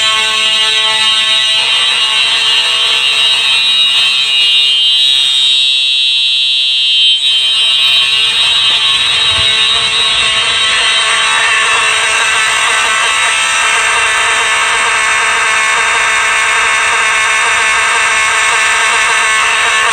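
Simplex 4903 fire alarm horn strobes sounding a continuous alarm, the mechanical 4903-9217 horn together with the electronic 4903-9254 horn. It is a loud, steady, buzzing blare with no gaps, and its tone shifts a few seconds in.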